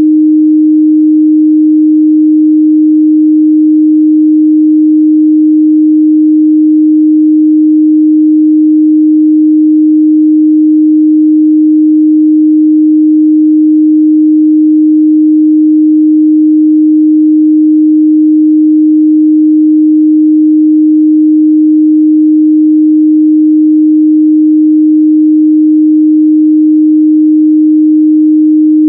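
A pure 308 Hz sine test tone, held steady and loud at one pitch without a break, used to check speaker and headphone midrange response.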